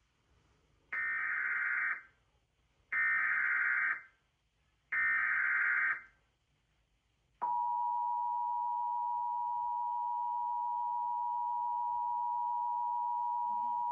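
Emergency Alert System header: three bursts of SAME digital data tones, each about a second long and a second apart. About halfway through, the steady EAS two-tone attention signal begins and holds, announcing the start of a new alert, here a flash flood warning.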